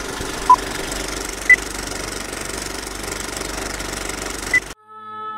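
Old-film countdown sound effect: a film projector clattering steadily, with three short beeps — one about half a second in, a higher one a second later, and another higher one near the end. The clatter cuts off suddenly and a slow, sustained music chord begins.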